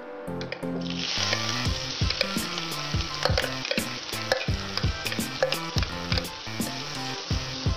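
Chopped chillies and aromatics hitting hot cooking oil in a wok: a loud sizzle that starts about a second in and keeps going as more is spooned in.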